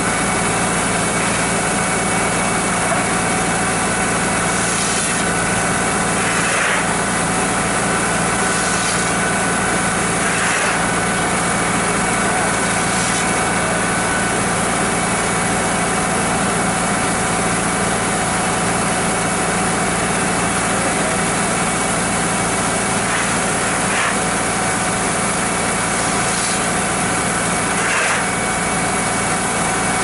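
Tractor engine running steadily, driving a grain auger as shelled corn pours from a truck into the auger's hopper. A few short scrapes of a scoop shovel working the corn.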